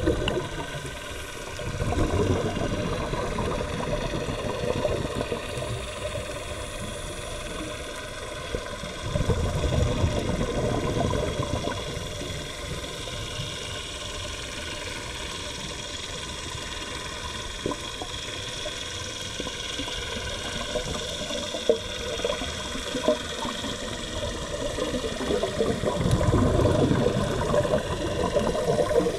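Scuba divers' exhaled air bubbling out of their regulators and rising, heard underwater, in surges several seconds apart, one per breath out.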